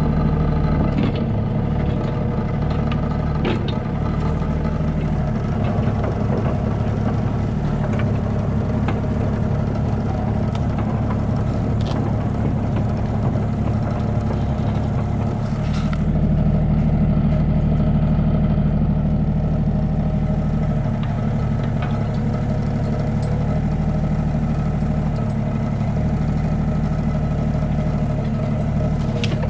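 A Yanmar mini-excavator's diesel engine running steadily, heard from the operator's seat while the arm and bucket are worked. The level rises briefly about halfway through.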